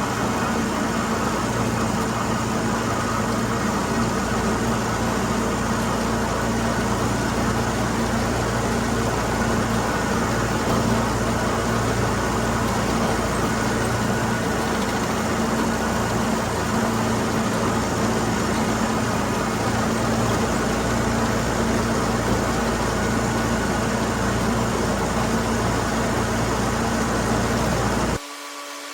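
Tractor engine running steadily with a constant mechanical hum, as when pulling a haybine through hay. The sound cuts off suddenly near the end.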